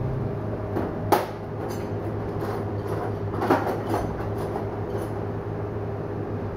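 Steady low machine hum of workshop equipment with a faint steady tone over it, broken by a few short knocks and clatters, the sharpest about a second in.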